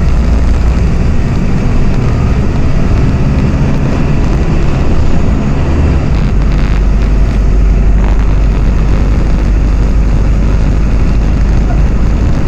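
Volksbus 15.190 OD Euro 5 diesel bus engine running while the bus is under way. Its low note shifts about six seconds in.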